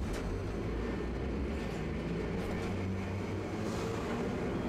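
Tosaden streetcar running, heard from inside the car: a steady low rumble of wheels on rail with a motor hum and a few faint clicks.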